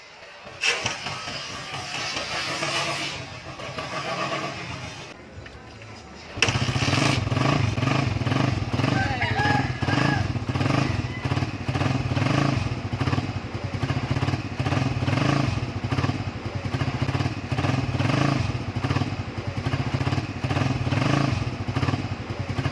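Suzuki Raider R150 carburetted single-cylinder engine breathing through a big-elbow exhaust, catching suddenly about six seconds in on a hard cold-morning start and then idling steadily with an even, pulsing exhaust note.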